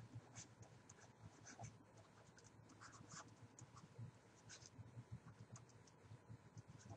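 Faint scratching of a stylus writing by hand on a tablet: a string of short, irregular pen strokes as a word is written out.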